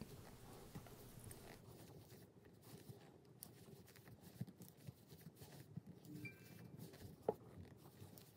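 Near silence with faint rustling and small soft clicks of a crochet hook working single crochet stitches through chunky plush yarn, with one sharper click about seven seconds in.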